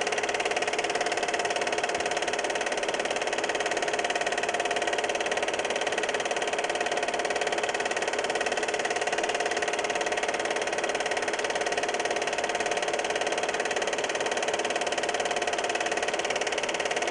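Cine film projector running: a steady mechanical whir with a fast, even rattle and a constant hum, unchanging throughout.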